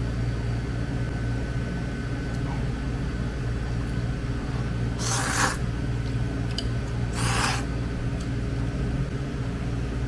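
A person slurping wide noodles: two short slurps about two seconds apart, over a steady low hum.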